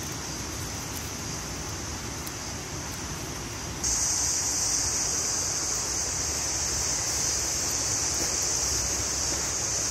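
Steady, high-pitched drone of insects in tropical garden vegetation, jumping suddenly louder about four seconds in, over a low rumble.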